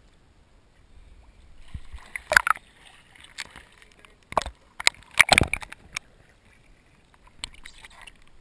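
Seawater sloshing and splashing close to the microphone at the surface, in several short irregular bursts, loudest about two and five seconds in.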